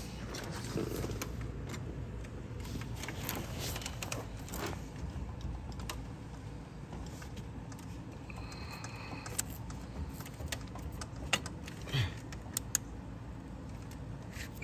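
Scattered light clicks and taps of hand tools on metal while the lower radiator hose and its clamp are being worked loose, over a low steady background rumble. A brief thin squeak comes about two-thirds of the way through, and a few sharper ticks come near the end.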